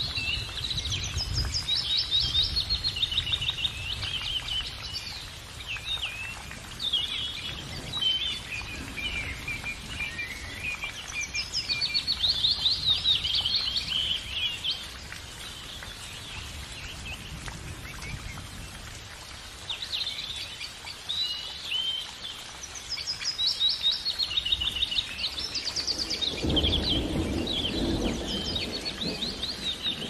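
A songbird singing: quick chirping trills and twittering phrases, repeated with short pauses.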